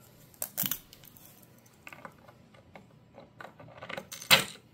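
Small clicks and scrapes of a metal bolt being handled and threaded by hand into a telescope riser block on a dovetail bar. There is a short cluster of clicks about half a second in and a louder sharp click near the end.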